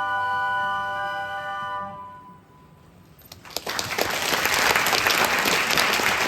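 The closing chord of the song is held and dies away about two seconds in; after a brief hush, audience applause breaks out and builds, continuing to the end.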